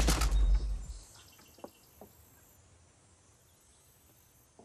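The tail of a loud energy-blast sound effect with a deep rumble, fading out within the first second. Faint outdoor background noise follows, with two light knocks.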